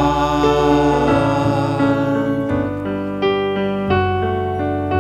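Piano accompaniment of a communion hymn playing sustained chords between sung lines, with a singer's last held, wavering note fading out over the first two seconds.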